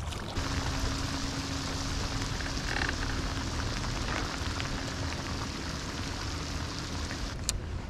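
Heavy rain pouring down onto a lake's surface, a dense steady hiss, with a faint steady hum underneath that stops near the end.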